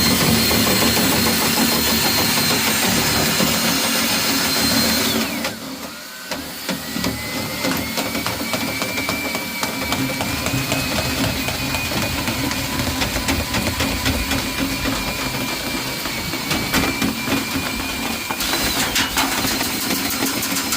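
Power drill spinning a rotary dryer-vent cleaning brush on extension rods inside the duct, its motor whining steadily. About five seconds in the pitch drops as the drill slows, then climbs back up near the end, with a fine rattle of clicks throughout.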